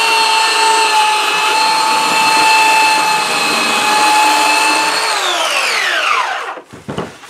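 Handheld belt sander running steadily as it sands a wooden bench top. It is switched off about five seconds in, and its motor whine falls away as it spins down.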